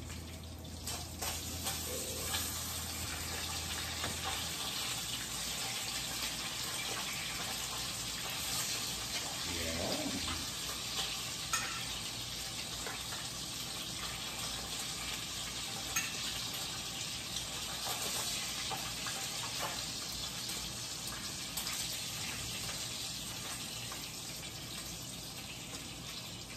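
Pork longganisa frying in a skillet in its own rendered fat: a steady sizzle, with a few light clicks of a utensil against the pan.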